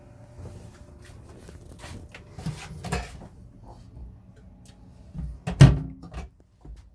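Scattered knocks and clatter of things being handled, with a group of knocks about halfway through and the loudest, sharpest knock late on, after which the sound cuts off.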